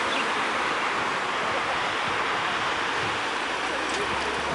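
Steady, even roar of a Boeing 747's four jet engines, heard from a distance as the jumbo jet rolls out on the runway after landing.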